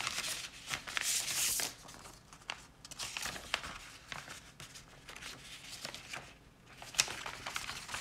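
A paper envelope is torn open by hand, then the folded letter is pulled out and unfolded, rustling and crinkling. A dense tearing hiss fills the first second and a half, followed by scattered rustles, a short lull, and a sharp paper snap about seven seconds in.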